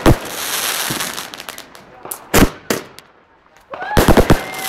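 Back-yard fireworks going off: sharp bangs and a crackling hiss at the start, two more bangs a couple of seconds in, then a quick cluster of bangs with a long whistling tone near the end.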